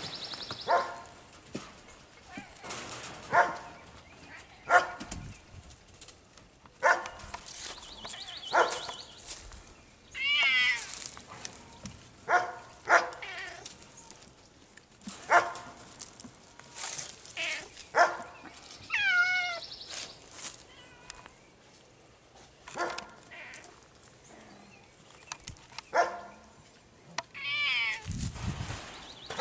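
Cats calling again and again: short, sharp calls every second or two, with two longer calls that waver in pitch, about ten seconds in and again near twenty seconds.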